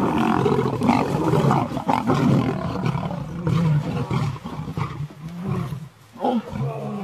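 Lions growling and snarling in a fight, a dense run of harsh low calls that breaks into separate calls with short pauses in the second half.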